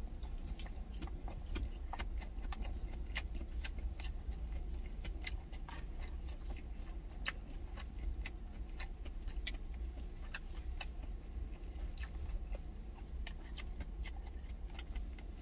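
Chewing, with frequent small clicks of wooden chopsticks on a stainless steel thermos lunch box, over a steady low rumble inside the truck cab.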